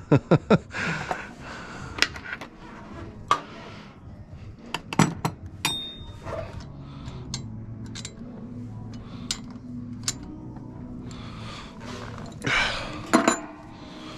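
Metal tools and pinsetter parts clinking and knocking at irregular intervals as they are handled, with a louder clatter about a second before the end.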